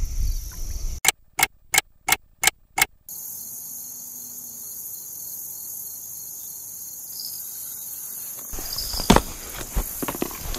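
Water sloshing around a hand at the bank's edge, then a quick run of six sharp clicks about a second in. After that, insects trill steadily in a high, even drone, and a couple of knocks come near the end.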